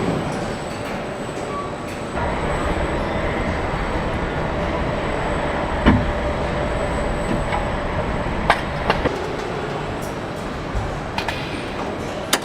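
Car assembly-line machinery running with a steady mechanical din. A few sharp metallic clanks and knocks stand out, the loudest about halfway through.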